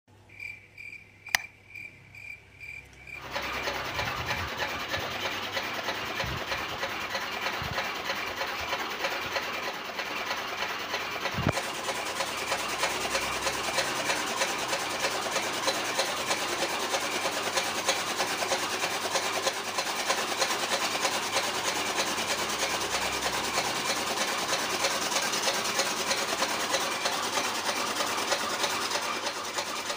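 A small DIY mini chaff cutter running, driven by a small electric motor, with a steady rasping and rapid fine ticking that starts abruptly about three seconds in.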